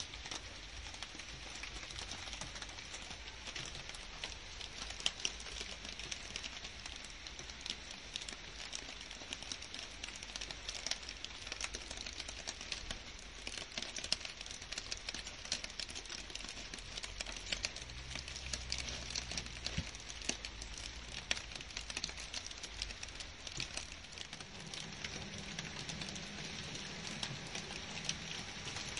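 Steady rain falling on garden foliage and grass, a dense patter of separate drops.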